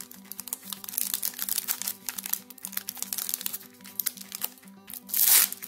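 Foil wrapper of a trading-card booster pack crinkling as it is handled and torn open, with a louder rip about five seconds in.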